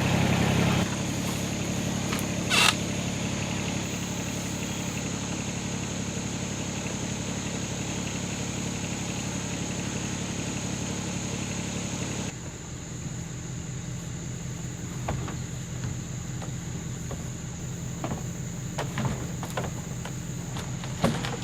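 A vehicle engine running steadily at low revs, with a steady high-pitched tone above it. There is a sharp knock about two and a half seconds in, and the engine note changes abruptly about twelve seconds in, followed by a few light clicks near the end.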